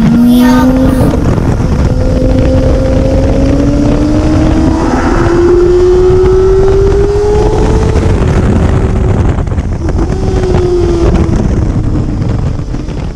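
Yamaha R6 inline-four sportbike engine under hard acceleration on the track. Its pitch climbs steadily for several seconds and drops back at gear changes about a second in, near eight seconds and again near eleven seconds. Wind rushes across the microphone throughout, and the sound fades out at the very end.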